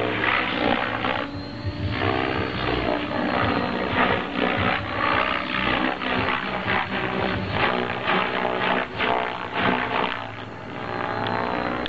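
Compass 7HV RC helicopter in flight with its main rotor at 1900 rpm headspeed, giving a loud, continuous rotor and motor sound. Its tone shifts and sweeps as the helicopter passes back and forth.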